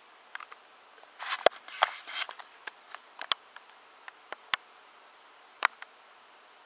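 Irregular rustling and sharp clicks from a kitten grappling and kicking a small striped fabric toy on carpet, densest a little over a second in, with scattered single clicks after and the last near the end.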